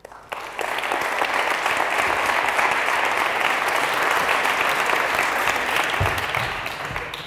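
Audience applauding. The clapping swells up within the first second and fades away near the end.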